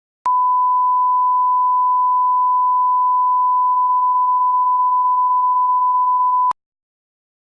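Electronic beep tone: one steady pure pitch held for about six seconds, switching on and off abruptly with a click at each end.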